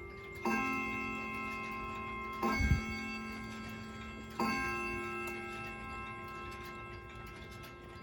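Bracket mantle clock playing its chime tune: three bell-like notes of different pitch, struck about two seconds apart, each ringing out slowly over a steady tick. A short dull thump comes just after the second note.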